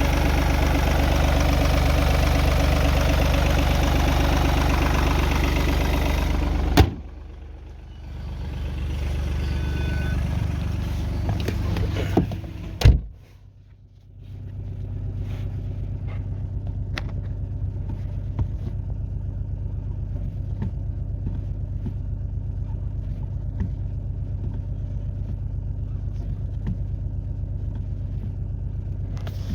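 Car engine running steadily, in three takes spliced together with sharp cuts about 7 and 13 seconds in.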